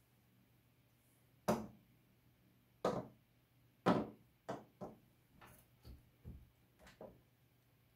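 Hard bone-shaped dog chew treats set down one at a time on a printer's glass scanner bed, making a series of knocks. Three loud ones come first, about a second apart, then lighter taps as the treats are nudged into place.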